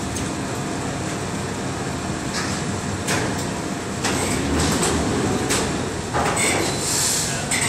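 Steady rumble and hiss of offshore platform and lift-barge machinery, broken by a few sharp metal knocks about two and a half, three, four and five and a half seconds in, and a short hiss near the end.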